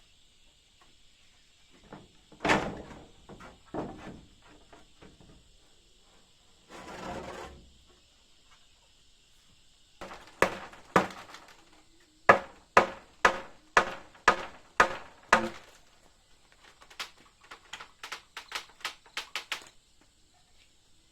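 Hammering: a few separate knocks and a short scraping sound, then about a dozen hard, evenly spaced strikes about two a second, followed by a quicker run of lighter taps, as when driving nails into wood.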